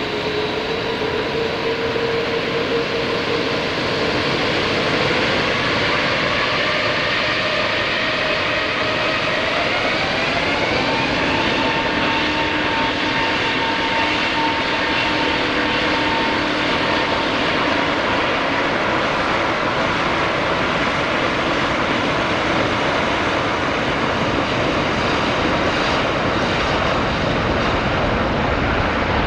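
Jet airliner's engines spooling up for takeoff: whining tones rise over several seconds about a fifth of the way in, then hold steady over loud, even jet noise.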